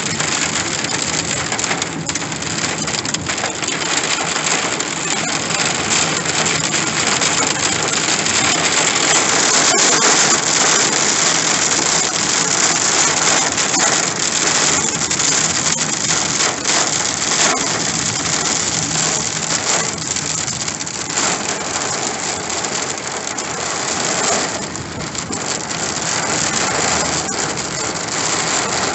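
Heavy rain drumming on a car's windshield and roof, heard from inside the cabin as a loud, dense hiss of countless small impacts. The engine and road noise run faintly underneath.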